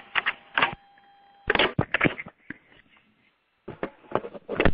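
Clusters of short, sharp crackling bursts over a conference phone line, with a faint steady line tone in the first second and a half, as the line is being shut down; the audio cuts off abruptly at the very end.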